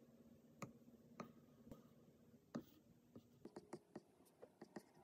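Apple Pencil 2 tip tapping on an iPad Air 4 screen fitted with a paper-feel screen protector: a few separate light taps in the first half, then a quicker run of taps from about three and a half seconds in.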